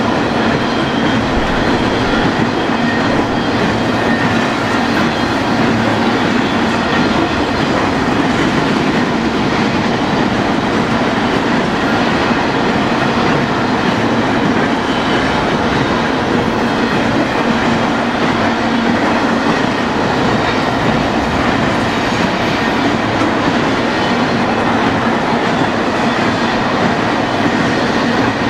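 Wheels of a BNSF intermodal freight train's trailer- and container-laden cars rolling past on the rails: a loud, steady noise that does not let up.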